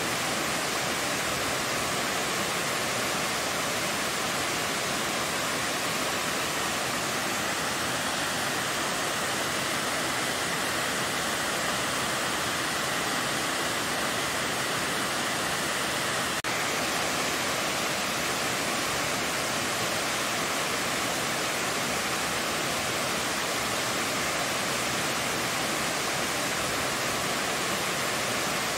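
A tall waterfall tumbling in tiers down a rock face: a steady, even rush of falling water that does not change.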